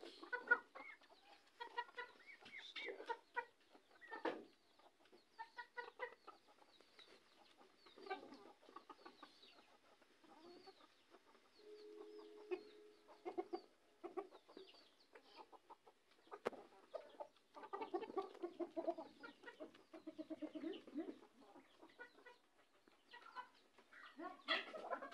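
A flock of domestic chickens clucking in short, scattered calls.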